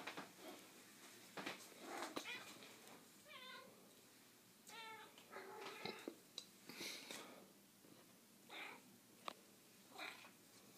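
Domestic cat giving two short, wavering meows, about three and a half and five seconds in, with faint rustling and soft taps around them.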